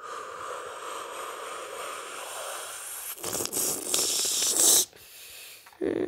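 Snoring sound effect: a long hissing breath, a louder hiss about three seconds in, then a buzzing, rising snore near the end.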